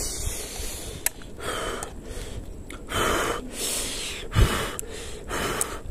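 Noodles slurped off chopsticks in several short sucking rushes, with a few light clicks of chopsticks on the metal wok. A single dull thump about four and a half seconds in is the loudest sound.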